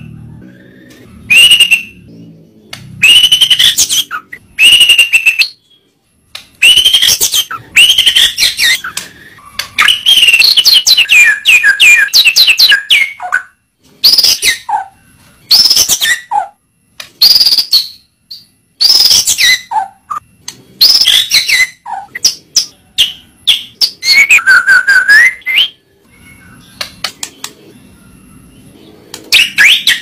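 White-rumped shama (murai batu) singing: loud phrases of clear whistles and rapid chattering trills with sliding pitches, each phrase lasting from under a second to a few seconds, separated by short pauses.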